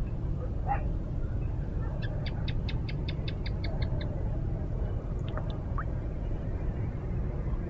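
A bird calling a fast run of about a dozen short, high notes, about five a second, over a steady low rumble.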